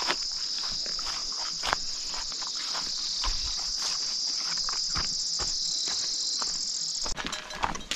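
Crickets trilling in a dense, steady high-pitched chorus, cutting off abruptly near the end, with scattered soft clicks and crackles underneath.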